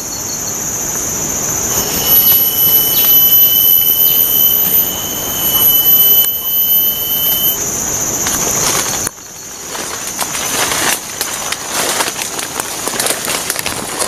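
Tropical forest insects droning at a high pitch, with a thin steady whistling tone over it for several seconds. The drone cuts off about nine seconds in, and leaves and twigs rustle and crackle as someone pushes through the undergrowth.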